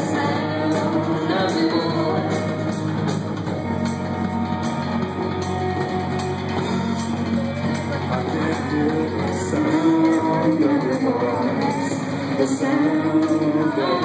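Live band playing: a female lead singer sings over electric guitars and a drum kit with steady cymbal hits, heard through the room from the audience.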